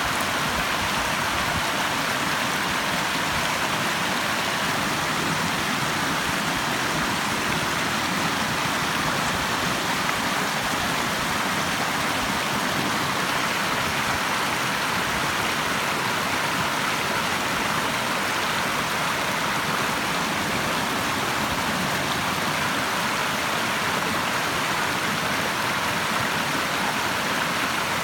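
Running water rushing steadily, an even, unbroken noise with no changes.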